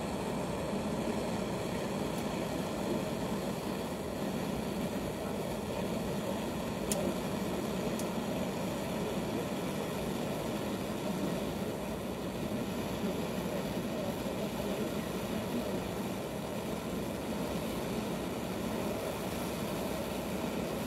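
Gas lighter torch flame burning with a steady rushing sound, playing on a copper pipe while a thin low-temperature 'welding' rod is melted against it.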